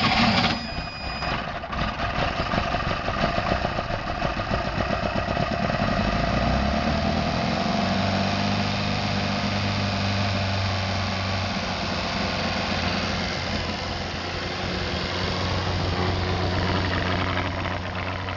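Rebuilt 1972 Universal Atomic 4 four-cylinder gasoline inboard engine running out of the water with its cooling water turned on, settling into a steady idle about seven seconds in.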